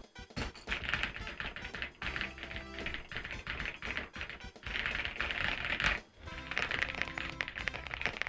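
Fast typing on an Epomaker Shadow X mechanical keyboard with Wisteria switches: quick runs of keystroke clicks in four bursts, with brief pauses between them. Background music plays under it.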